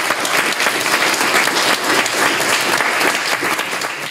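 Audience of a few dozen people applauding steadily.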